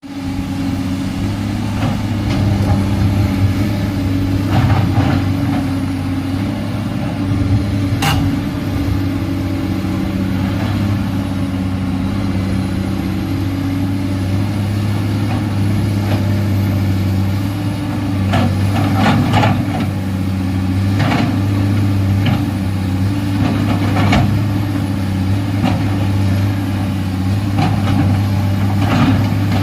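Komatsu PC210LC hydraulic excavator's diesel engine running steadily while it cuts a roadside slope. Short bouts of clattering and scraping from the bucket working the soil recur throughout, and there is one sharp knock about eight seconds in.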